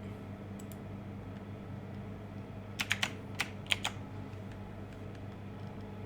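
Computer keyboard keys tapped in a quick burst of about six clicks roughly three seconds in, over a steady low hum.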